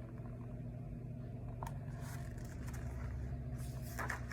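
Steady low background hum, with a faint click about one and a half seconds in and a short rustle near the end.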